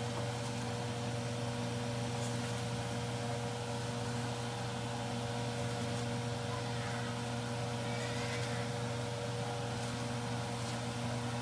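Steady low kitchen hum with an even hiss underneath, over a tomato sauce simmering in a cast iron skillet. A few soft rustles and light ticks come from chopped napa cabbage being piled into the pan, the clearest about seven to eight and a half seconds in.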